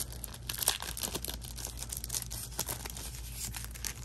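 Plastic wrapping crinkling and tearing in quick crackles as it is pulled off a pack of cardboard board-game tiles.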